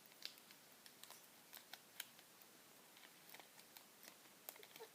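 Faint, irregular snips and small clicks of scissors cutting.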